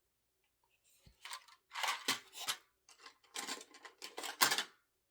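Small plastic LEGO pieces being rummaged through and handled: a run of irregular rustling, rattling scrapes that starts about a second in, loudest near the end.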